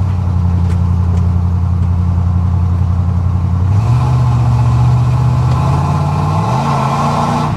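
Ford F-150 pickup engine pulling the truck along, its note stepping up in pitch about four seconds in as it accelerates and climbing again near the end, with a rushing road noise growing alongside.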